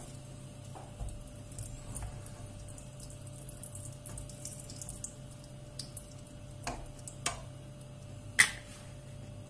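Wooden spoon pushing lumps of sheep tail fat around a non-stick frying pan of heating oil: faint scattered crackles and light taps over a steady low hum, then a few short knocks, the sharpest near the end.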